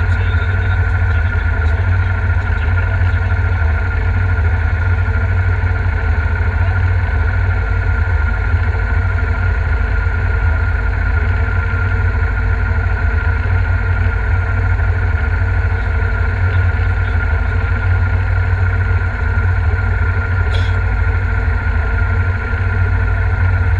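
Ford Escort Mk2's engine idling steadily, heard from inside the cabin with a deep, constant low hum.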